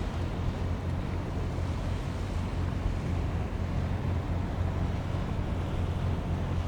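Steady outdoor rumble with a wash of noise, like wind buffeting the microphone, with no rhythm or change.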